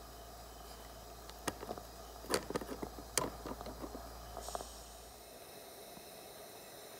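Faint steady hiss from a gas-fired Gauge 1 live-steam locomotive, an Aster DR class 03, standing as it runs out of fuel, with a cluster of small clicks and crackles lasting about three seconds from a second and a half in.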